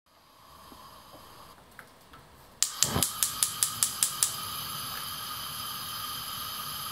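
Gas stove burner being lit: the igniter clicks rapidly, about five clicks a second for a second and a half, with a low whoosh as the gas catches, then the flame hisses steadily.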